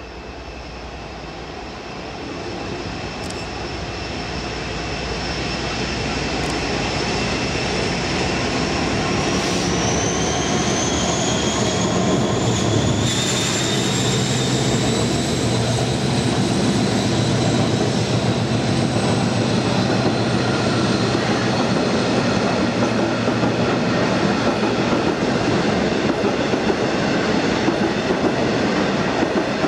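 Class 56 diesel locomotive with its Ruston Paxman V16 engine approaching under power and passing close by, growing steadily louder, with a high whine that rises in pitch about ten seconds in. It is followed by the rumble and clatter of a long train of box wagons rolling past.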